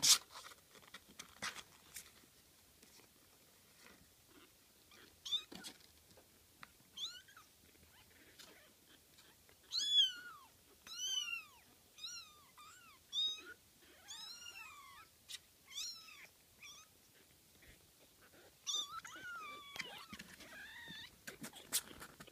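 Young kittens mewing: many short, high mews that rise and fall in pitch, coming in quick runs about ten seconds in and again near the end. A sharp click at the very start and a few fainter clicks follow in the first two seconds.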